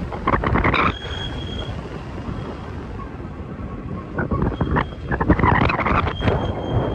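Freight train rumbling past under heavy wind buffeting on the microphone. The gusts surge hardest in the first second and again for a couple of seconds past the middle.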